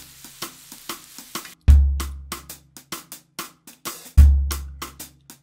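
Background music with a drum beat: a deep bass note about every two and a half seconds, with quick hi-hat and snare ticks in between.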